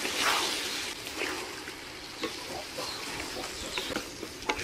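Vegetables sizzling in oil in a metal pot while being stirred with a wooden spatula. Soft scraping strokes, with a few sharp knocks of the spatula near the end.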